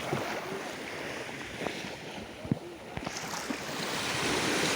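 Small waves of a calm sea washing onto the shore, the surf swelling toward the end. A couple of short knocks sound about two and a half and three seconds in.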